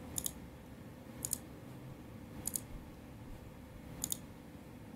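Computer mouse clicking: four quick double clicks, about one every second or so, as edges are picked in a 3D modelling program.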